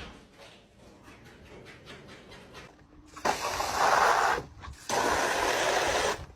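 A cat hissing twice, two long loud hisses a short pause apart, starting about three seconds in after a quiet stretch.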